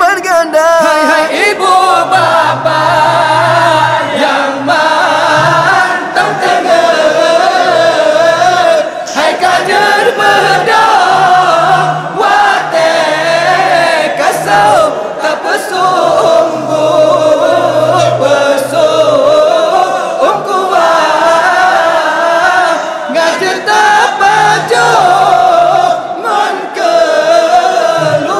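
Voices singing a melodic Ramadan sahur wake-up song over music with sustained low bass notes.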